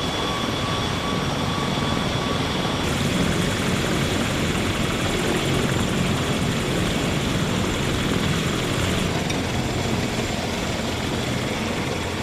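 Helicopter in flight: a steady, even noise of rotor and turbine.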